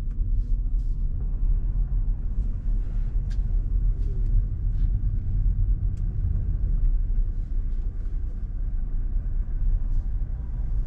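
BMW sedan's engine idling, heard from inside the cabin as the car creeps along at walking pace: a steady low rumble with a few faint scattered clicks.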